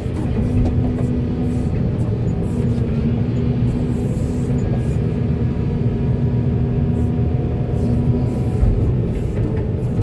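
Heavy diesel engine of construction machinery running steadily, a continuous low rumble with a constant hum.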